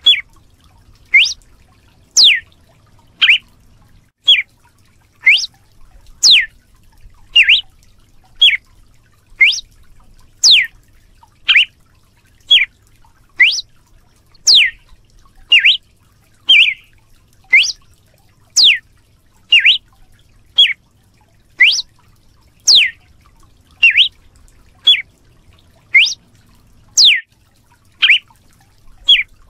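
Red-cowled cardinal (galo de campina) giving its whip-like 'açoite' call: short, sharp, slurred whistles about once a second, some sweeping up in pitch and others sweeping down.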